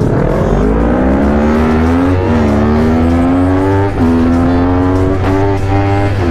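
Sport motorcycle engine, the uploader's Honda CBR bored to 280cc, accelerating hard from a standstill. The revs climb steadily and drop back at each quick upshift, about four shifts in all.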